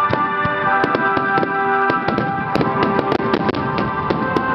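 Starmine fireworks salvo: many shells and ground mines bursting in rapid succession, a dense run of sharp bangs and crackles, thickest around the middle. Music with long held chords plays throughout.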